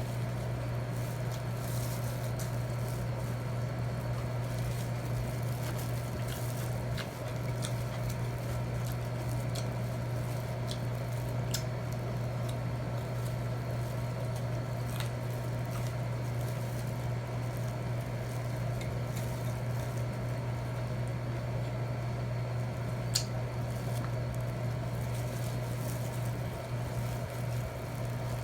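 Close-up eating sounds, soft wet chewing and squishing, with a few sharp clicks of cutlery on a plate, the loudest about three quarters of the way through. A steady low hum runs underneath.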